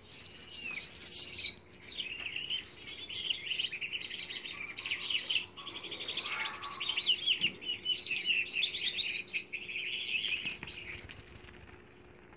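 Pet cage birds chirping and twittering rapidly, a dense run of short high calls that stops about eleven seconds in.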